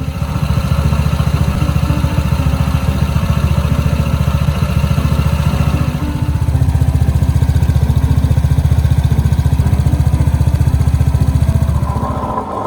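Honda PCX scooter's single-cylinder engine running steadily with a fast, even beat, dipping briefly about six seconds in, with a new driven face bearing fitted to cure the drive-train noise.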